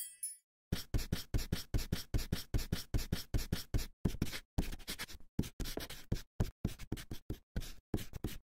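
Chalk writing on a blackboard: a quick run of scratchy strokes, several a second, starting about a second in and stopping near the end.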